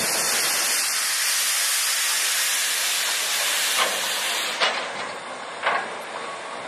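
Steam locomotive No. 8630, a JNR Class 8620, letting off a loud, steady hiss of steam that cuts off about four and a half seconds in. Three sharp metallic knocks come near the end as it moves slowly over the track.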